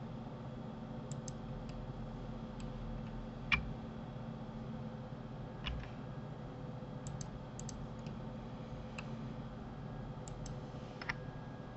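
Scattered clicks of a computer keyboard and mouse over a steady low hum, with louder keystrokes at about three and a half, five and a half and eleven seconds in.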